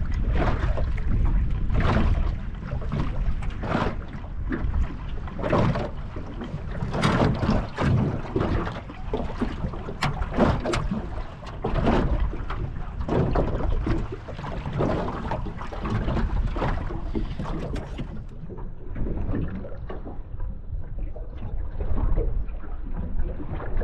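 Wind buffeting the microphone over choppy water, with irregular slaps and splashes of water against the small boat.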